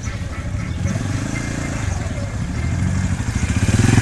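An engine running with a low, even pulsing hum that grows louder near the end.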